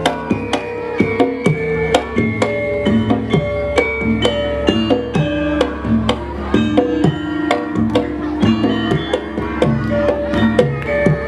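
Javanese gamelan ensemble playing: struck bronze metallophones ring out a stepping melody of held notes over frequent hand-drum strokes.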